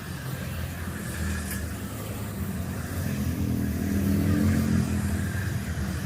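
Motor vehicle engine running with a low rumble that grows louder about three to five seconds in, then eases off.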